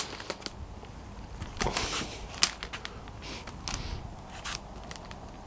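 Handling noise: a sharp knock right at the start, then scattered light clicks and taps over a faint steady hiss.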